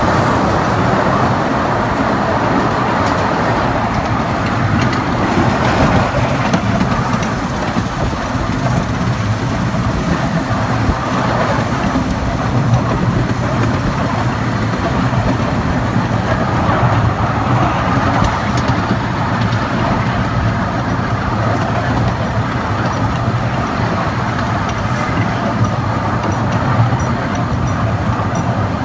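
1905 Cagney Brothers miniature steam train running along its track, heard from on board the passenger cars: a steady rumble and rattle of the train in motion.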